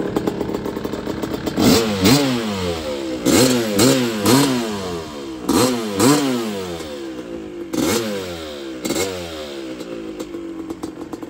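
1986 Suzuki RM250's two-stroke single-cylinder engine idling, then blipped about nine times in quick succession, often in pairs. Each rev jumps up and drops back, and the engine settles to a steady idle near the end.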